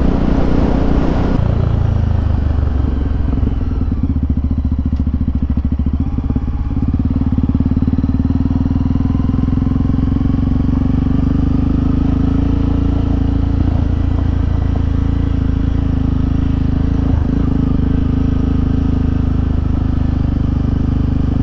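Single-cylinder motorcycle engine running under way. The throttle eases off about a second and a half in, the engine drops back once more a few seconds later, then it holds a steady cruise.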